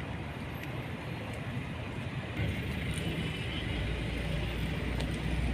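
Steady hum of road traffic and car engines, with a deeper rumble that grows louder about halfway through.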